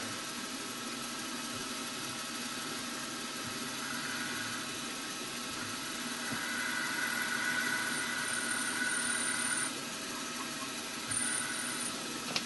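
Milling machine running with a steady motor hum; a louder, higher motor whine comes in for about four seconds past the middle and again briefly near the end.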